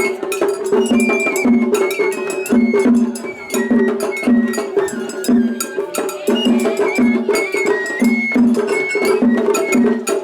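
Japanese festival hayashi: a shinobue bamboo flute playing a held, stepping melody over fast, dense strikes of taiko drums and a clanging atarigane hand gong.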